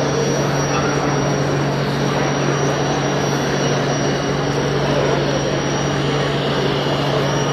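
Steady low hum under a dense murmur of many voices: the ambient din of a crowded exhibition hall.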